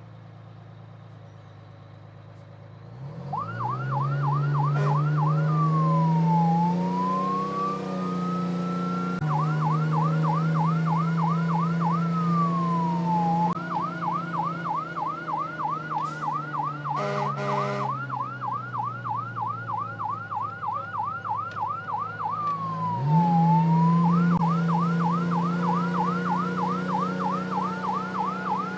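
Fire engine electronic siren starting up a few seconds in, alternating between a fast yelp and slower falling-and-rising sweeps, over a low drone. A couple of short horn blasts come about midway.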